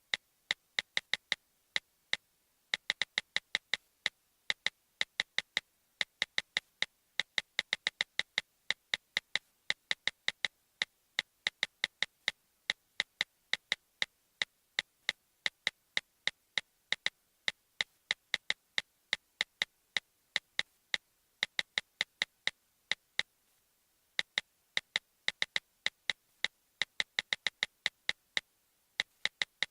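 An iPad button clicked over and over: sharp, short clicks with a slight ringing tone, in quick irregular runs of several a second broken by brief pauses.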